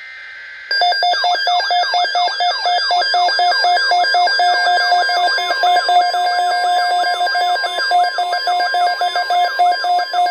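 Weather radio emergency alert. A faint, warbling SAME digital data burst lasts under a second, then a loud electronic alarm sounds: rapidly pulsing beeps laced with repeated falling sweeps.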